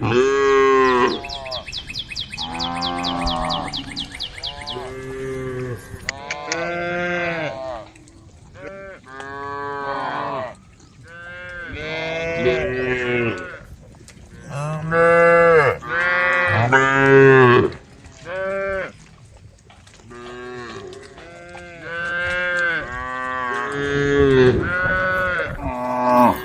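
Cows mooing over and over, several calls overlapping at different pitches, some deep and some higher. A fast, high, chirring trill sounds through the first few seconds.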